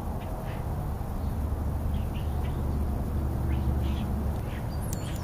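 Wind rumbling on the microphone, with a scatter of short, faint high chirps from birds.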